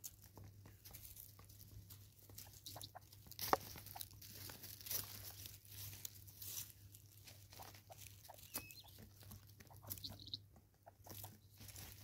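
Helmeted guineafowl pecking seed off the top of a wooden stump: irregular quick beak taps on the wood and crunching of seed, the sharpest tap about three and a half seconds in.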